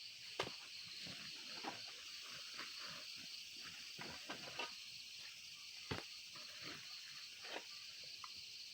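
Steady insect chirring with a fast pulse, under scattered light clicks, knocks and rustles.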